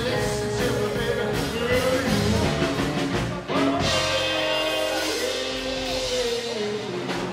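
Rockabilly band playing live: electric guitar and acoustic guitar over a drum kit, with a voice holding long notes. The low end thins out near the end.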